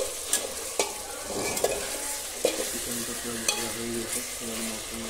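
Steel spatula stirring chicken frying in oil in an aluminium pot: a steady sizzle with sharp scrapes and clinks of the spatula against the pot about once a second.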